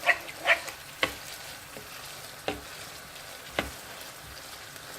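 Minced meat and tomatoes being stirred in a hot frying pan, sizzling steadily, with a few scrapes and sharp knocks of the stirring utensil against the pan.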